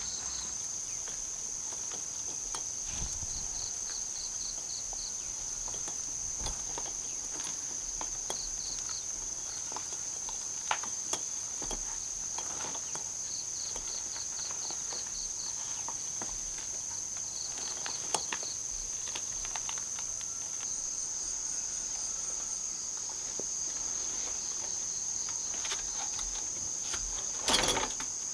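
Insects chirping: a steady high-pitched drone with repeated quick trills over it, and scattered faint clicks. A brief louder noise near the end.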